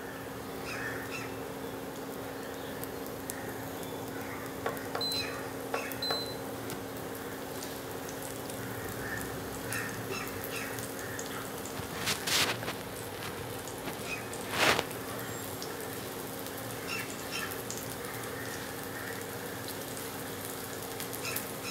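Semolina-coated pomfret pieces shallow-frying on low heat in a little oil in a non-stick pan: a gentle, steady sizzle with scattered small crackles and two louder crackles about 12 and 15 seconds in. A steady low hum from the induction cooktop runs underneath.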